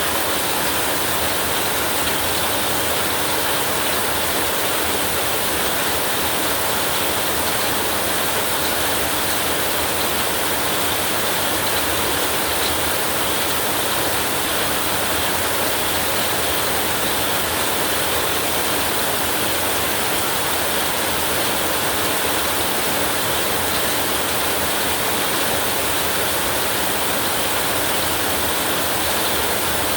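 Heavy rain falling steadily, an even hiss with no thunder or single drops standing out.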